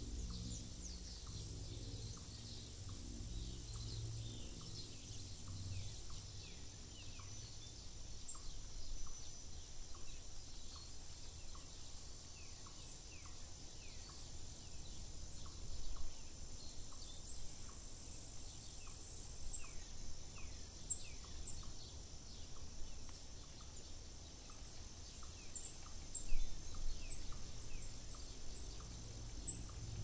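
Wild birds singing and chirping, many short quick notes scattered throughout over an even high-pitched hiss, with one louder call near the end.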